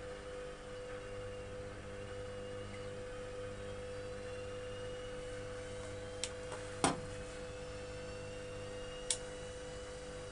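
Electrolux EWS 1045 washing machine running with a steady hum and a constant mid-pitched tone, broken by three short clicks, the loudest about seven seconds in.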